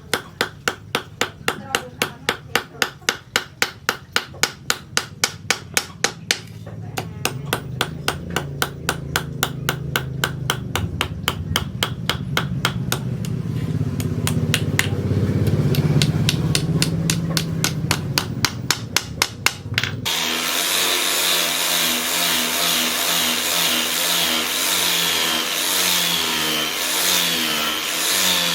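Hammer blows on hot leaf-spring steel over an anvil, evenly spaced at about three a second, with a low hum growing beneath them. About two-thirds of the way through, this cuts off abruptly to a steady power-tool whine whose pitch wavers.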